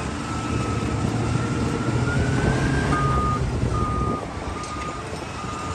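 Large Caterpillar mining wheel loader's diesel engine running under load. From about three seconds in, its reversing alarm sounds a steady series of beeps, a little more than one a second.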